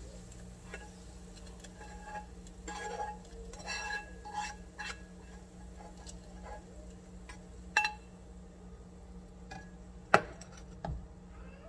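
A spatula scraping and tapping against a non-stick frying pan, with scattered light clinks and scrapes. About ten seconds in, the pan is set down on a glass-ceramic cooktop with a sharp knock, the loudest sound, followed by a smaller knock. A steady low hum runs underneath.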